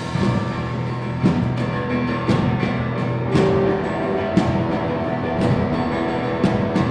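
Christmas concert music from an instrumental ensemble, with sustained pitched notes and regular sharp percussion strikes.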